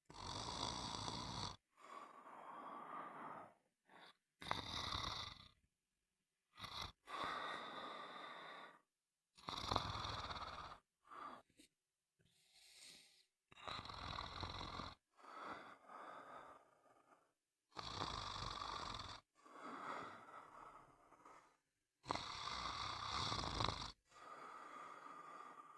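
Someone snoring: a run of snoring breaths, each a second or two long, with short silent gaps between them.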